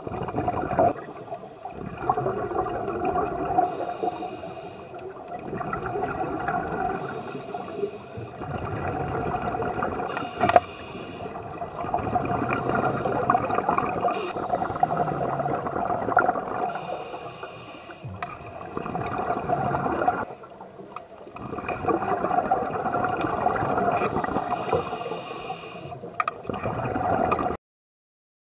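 Underwater water noise, bubbling and gurgling, swelling and fading every few seconds, with a few sharp knocks; it cuts off abruptly near the end.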